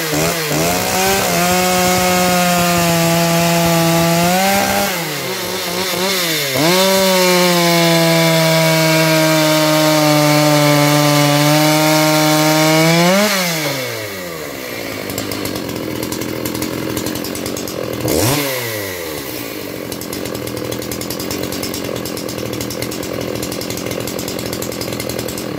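Makita 6400 two-stroke chainsaw cutting through a log at high revs under load, with a brief dip in revs about five seconds in. About thirteen seconds in, the revs climb sharply as the chain breaks through, then drop to idle. The saw idles, with one quick rev blip a few seconds later.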